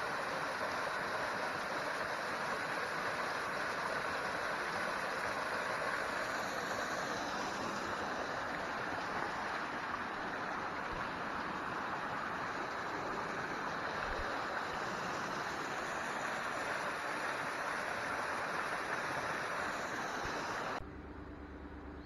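Small waterfall and rocky stream rushing steadily, cut off suddenly about a second before the end.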